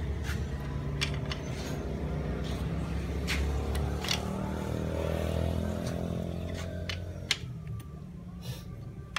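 A motorcycle engine running close by, its hum swelling around the middle and dying away near the end. Light metallic clicks of a hand tool on engine parts come through here and there.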